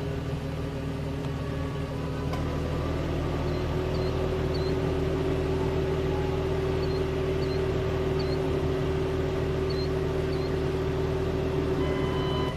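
A steady, droning motor hum, getting a little louder about three seconds in, with faint short high chirps scattered through it.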